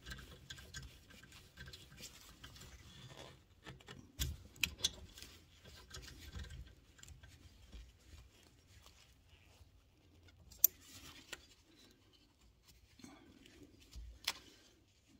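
Scattered light clicks and metal clinks of a socket wrench being worked on a rear brake caliper's top guide pin bolt as it is undone, with one sharper click about ten and a half seconds in.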